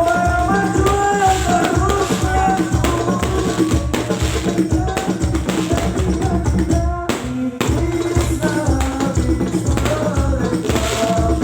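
Sholawat devotional song: singing over a steady frame-drum (rebana) rhythm, with a short break about seven seconds in.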